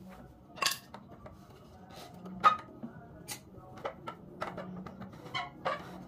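Irregular sharp clicks and light knocks of wooden bird-cage parts being handled and fitted together, about seven of them spread over a few seconds, over a faint steady low hum.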